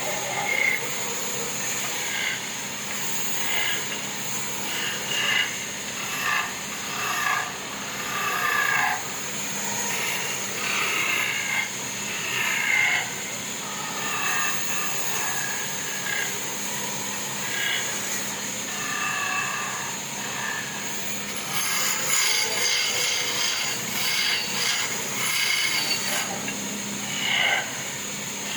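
Sawmill machinery running through wood: a steady high whine throughout, with short irregular squeals and scrapes that come more often near the end.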